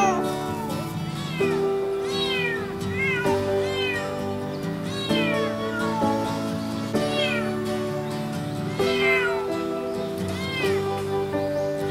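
A kitten mewing over and over in short, high-pitched cries, each rising then falling, more than one a second: the kitten is calling its mother to the carrier. Background music plays under it.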